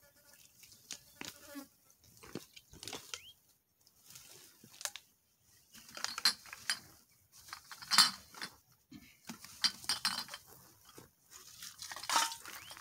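Uneven rustling and crackling of someone moving through dry brush and grass while gathering litter, loudest about eight seconds in. A short buzzing tone runs through the first second and a half.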